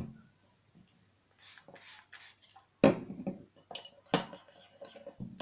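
Homemade slime being worked in a dish, with a utensil clinking and scraping against it in a few separate sharp knocks and short rubs. The loudest knocks come about three seconds in and again about a second later.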